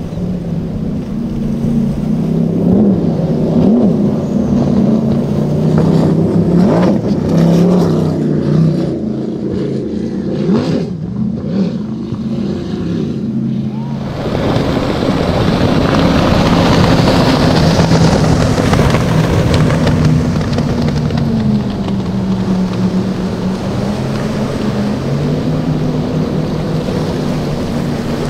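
High-performance speedboat outboard engines running hard at speed, a steady drone under rushing water and spray from the hulls. The sound changes abruptly about halfway through to a louder wash of spray and wind over the engines.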